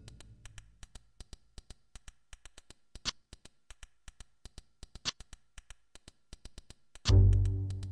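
Sparse background music: a rapid steady ticking with a louder accented tick every two seconds, and a deep, low, ringing hit near the end that slowly fades.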